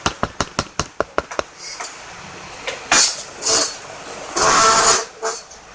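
Glue being scraped out of its container to get the last of it: a fast run of clicks, about six a second, that dies out after a second or so, then a few harsh scraping rasps, the longest and loudest near the end.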